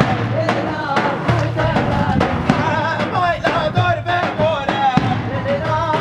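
Davul bass drum beaten with a stick in a steady rhythm, with other hand-held percussion and voices singing a folk song together.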